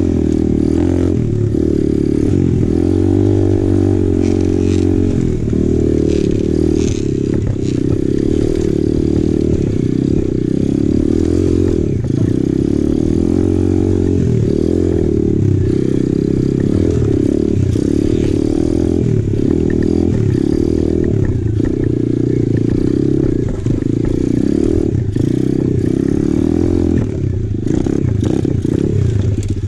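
2020 Apollo RFZ Open 125cc pit bike's single-cylinder four-stroke engine running under load while climbing a rough trail, its pitch rising and falling over and over with the throttle.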